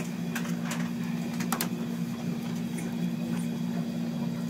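Steady low hum of equipment, with a few faint ticks and crinkles from the adhesive tape being handled around the umbilical catheters.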